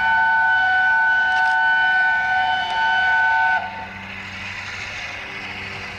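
A steam locomotive's whistle sounding one long, steady blast of several tones at once, cutting off suddenly about three and a half seconds in. After it comes the quieter, steady noise of the approaching train.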